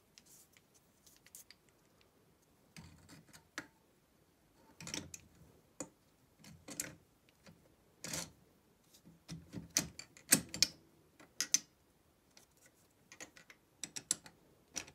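Metal rocker arms and rocker shaft of a Fiat 126 engine clicking and clinking as the assembly is handled and fitted onto the cylinder head studs and pushrods: irregular light knocks, busiest and loudest toward the middle.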